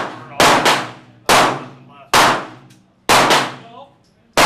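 Rapid gunfire: about seven loud shots, some in quick pairs, each with a short echoing tail.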